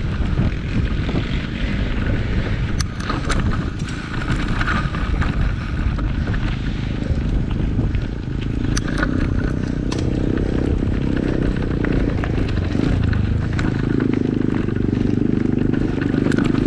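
Wind buffeting the microphone over a dense rumble, broken by scattered sharp knocks and rattles, typical of an on-bike camera during a mountain-bike ride over rough ground. A steady droning hum builds from about eight seconds in.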